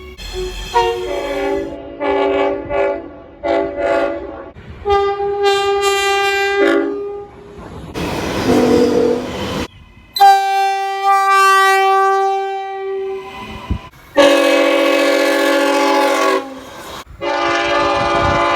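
Train horns blowing a series of blasts. A few short blasts come first, then longer held ones, with a stretch of rail noise between them.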